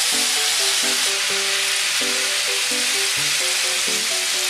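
Beef, carrots, potatoes and onion sizzling in oil in a frying pan while a spatula stirs them, under background music with short melodic notes.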